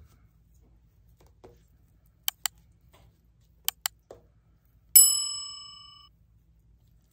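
Subscribe-reminder sound effect: two quick double clicks of a computer mouse, then a single bright bell ding that rings out and fades over about a second.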